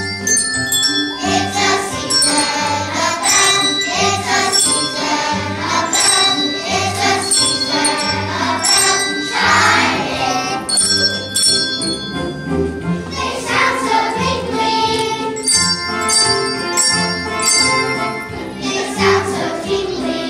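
Children's choir singing a Christmas song over a musical accompaniment with a steady beat.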